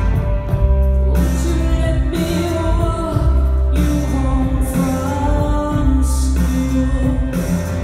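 Live rock band playing through a concert hall's sound system: steady bass and guitars, with a voice singing a melody over them from about a second and a half in.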